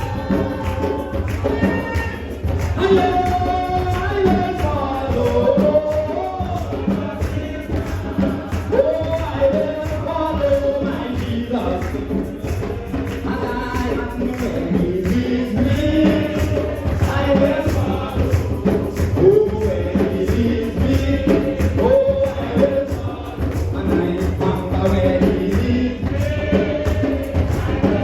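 Gospel music in church: voices singing a melody over instrumental accompaniment with a steady beat.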